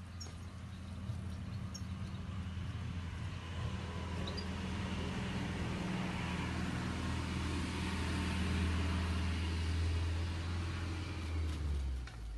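A low engine drone, like a motor vehicle going past, growing louder to a peak about nine seconds in and falling away near the end. A few faint, short high chirps sound in the first few seconds.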